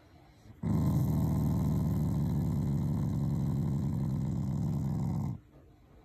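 Shiba Inu growling in one long, steady, fluttering growl that starts suddenly just under a second in and breaks off after about four and a half seconds. It is the dog's habitual affectionate growl at its family, not a threat.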